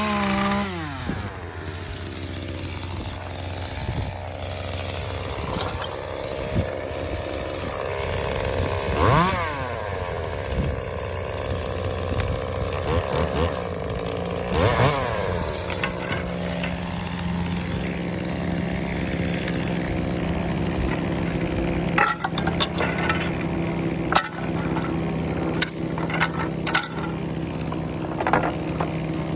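Echo CS-2511T small top-handle two-stroke chainsaw revving up and dropping back three times, then running more steadily for the last half, with several sharp knocks near the end.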